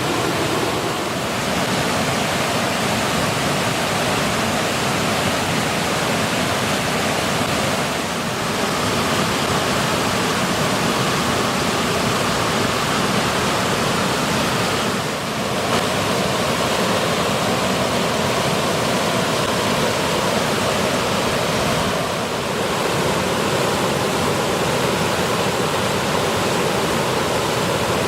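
A short multi-tiered waterfall cascade, its water rushing in a steady, loud roar that dips briefly in level about every seven seconds.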